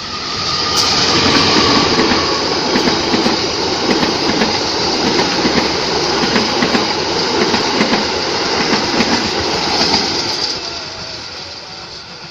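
A passing train, loud, with wheels clattering over the rail joints and a high hiss from wheel on rail. It swells in about half a second in and fades away near the end.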